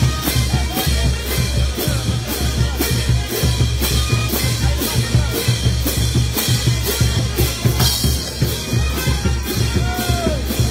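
Marching brass band playing, with large bass drums, a snare drum and hand cymbals driving a steady beat of about two crashes a second under the wind instruments.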